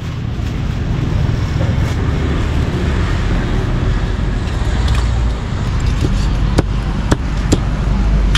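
Steady street traffic rumble, with a few sharp knocks in the second half, from a cleaver chopping meat on a board.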